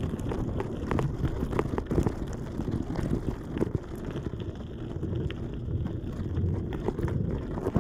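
Wind buffeting a phone's microphone, giving a steady low rumble, with scattered small knocks and crackles over it.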